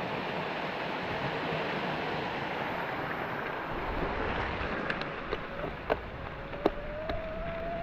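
Waterfall rushing steadily; then, a little under four seconds in, a mountain bike running down a wet dirt road, with wind on the microphone, tyre noise, a few sharp knocks from the bike and a thin whine that rises slowly over the last couple of seconds.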